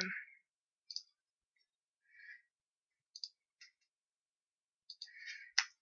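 Faint, sparse clicks of a computer mouse and keyboard keys, about half a dozen scattered ones, with a sharper click near the end.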